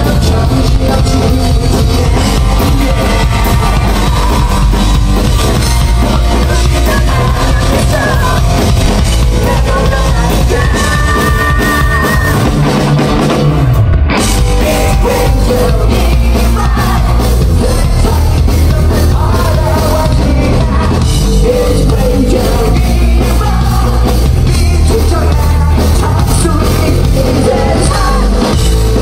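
Live heavy rock band playing loud, a singer's voice over electric guitars, bass and drums.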